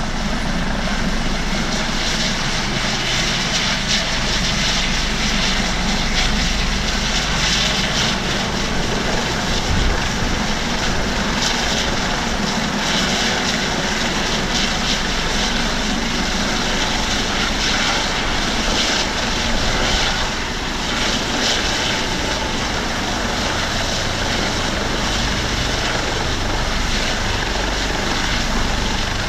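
Airbus Helicopters AS365/565 Dauphin twin-turbine helicopter hovering low: a steady, loud mix of turbine whine and main-rotor and Fenestron tail-rotor noise.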